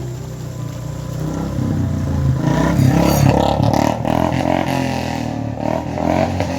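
A motor vehicle's engine running on the road, growing louder to a peak about three seconds in and then easing off, as it goes past.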